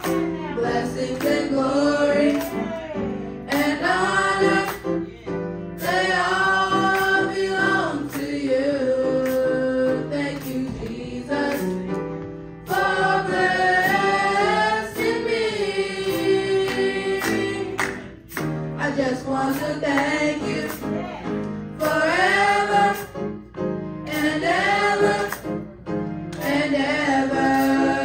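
A small gospel choir of female and male voices singing through microphones in phrases a few seconds long with brief breaks between them, over sustained keyboard chords.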